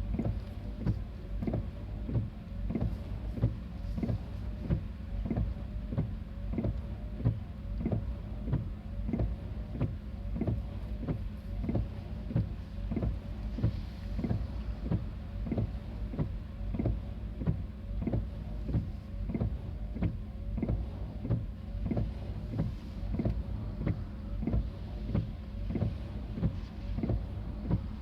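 Japanese railway level-crossing warning bell ringing with steady, evenly spaced dings, signalling that a train is approaching and the crossing is closed.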